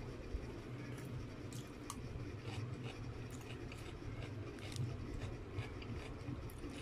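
A person chewing a spoonful of saucy sweet and sour pork close to the microphone, with scattered short wet mouth clicks and smacks.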